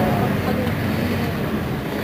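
Mercedes-Benz Citaro city bus engine idling steadily while the bus stands at a stop, with faint street noise.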